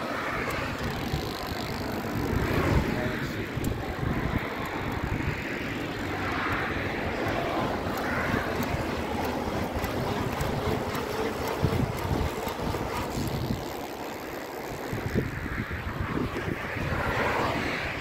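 Bicycle ridden with a Rohloff internal gear hub being pedalled, its gear whir lying under steady wind buffeting on the microphone. Passing road traffic swells and fades, loudest a few seconds in and near the end.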